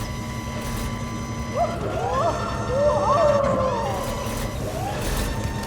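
A vehicle engine running steadily under held background-music tones, with a wavering, siren-like wail that rises and falls from about one and a half seconds in until nearly five seconds in.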